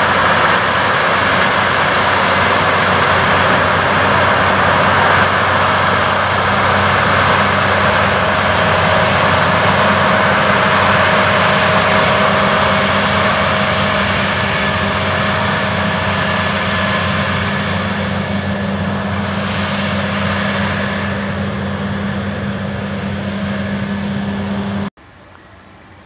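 Heavy harvest machinery running steadily: a combine harvester and a tractor hauling a grain trailer, a loud, even diesel drone mixed with threshing noise that fades slowly. Near the end it drops suddenly to a much quieter, more distant machine drone.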